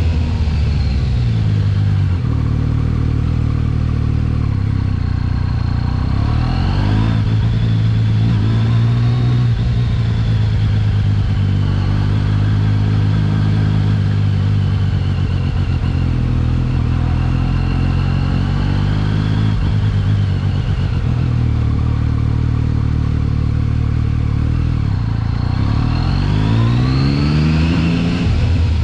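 Yamaha XSR900's three-cylinder engine running under way at mostly steady revs. The pitch rises as the throttle is opened about seven seconds in and again near the end.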